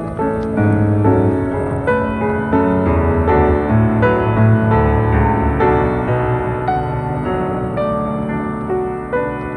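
Solo piano music, a gentle melody of evenly paced notes over a bass line.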